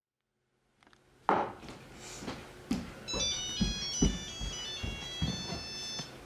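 A mobile phone ringtone plays a quick, repeating high electronic melody from about three seconds in, with a short break near the end. Under it are low thumps and footsteps on the stage floor, the loudest thump about a second in.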